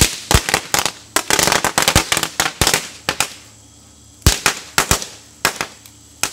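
Firecrackers exploding in a burning fire: irregular sharp bangs, with a fast string of them about a second in, then scattered single bangs and a short lull a little past halfway.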